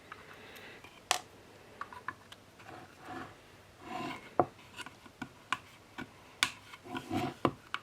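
Phillips screwdriver working the screws that hold the blade of a soap shaver: irregular sharp clicks and taps, with short scraping, rasping turns between them.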